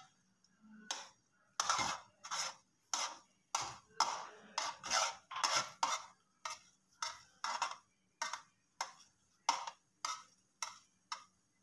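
A metal spoon scraping and stirring grated carrots in a metal pot, about two strokes a second, louder in the first half. The carrots' own juice has cooked off, so the spoon scrapes over the dry pot bottom as the carrots are fried.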